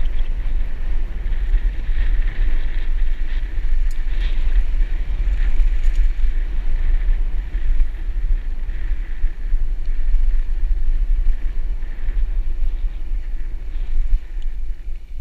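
Wind buffeting the microphone of a camera on a moving mountain bike, a steady heavy rumble, over the noise of tyres rolling on a dirt road. A few small clicks and rattles come from the bike.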